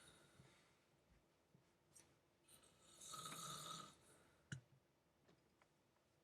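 A sleeping person snoring: the tail of one snore at the start, then one full snore of about a second about three seconds in, followed shortly by a short sharp click.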